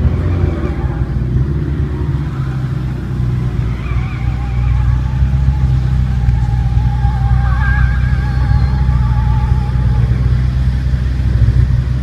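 Car engine running at idle, a steady deep rumble throughout. A wavering higher-pitched sound rides over it from about four to ten seconds in.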